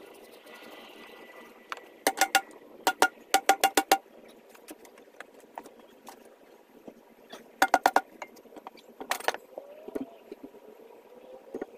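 Metal striking metal in quick clusters of sharp, ringing clanks, several blows in a row, then pauses.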